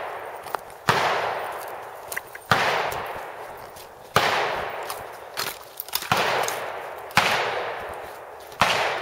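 Gunshots from shooters on a neighbouring pistol range: six shots one to two seconds apart, each a sharp report with a long fading echo.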